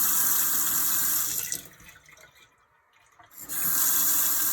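Kitchen faucet turned on and run into the sink twice, the water stopping for about two seconds in between. This is a test of a handle just rebuilt with new seats and springs.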